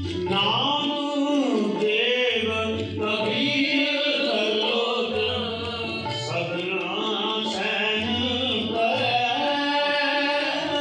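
Sikh kirtan: a hymn sung with a gliding, ornamented melody over a sustained harmonium and tabla strokes.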